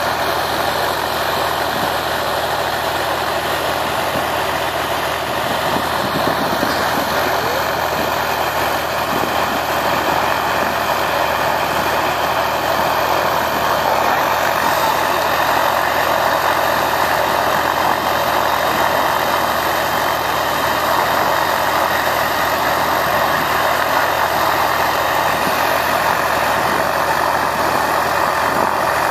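Robinson R44 Raven II helicopter idling on the ground, its six-cylinder piston engine running at a steady pitch and level.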